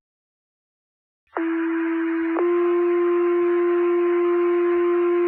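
Two-tone sequential fire paging tones over a dispatch radio channel, the alert that sets off the firefighters' pagers: a steady tone for about a second, then a slightly higher tone held for about three seconds. They start about a second and a half in.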